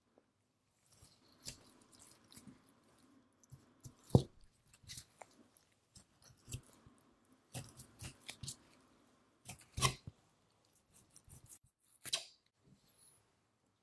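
Knife slicing fat away from a block of Kuroge Wagyu kamenoko (knuckle) while a gloved hand peels it back: wet crackling with irregular sharp clicks as the fat and membrane part from the meat, the loudest snaps about four and ten seconds in.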